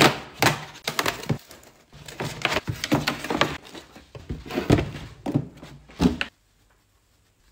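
Corrugated cardboard shipping box being folded and assembled by hand: a quick run of creasing crackles, flap slaps and thumps that stops suddenly about six seconds in.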